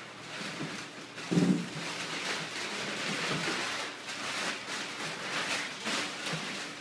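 Crumpled brown kraft packing paper rustling and crinkling as it is pulled out of a cardboard box and thrown aside, with a dull thump about a second and a half in.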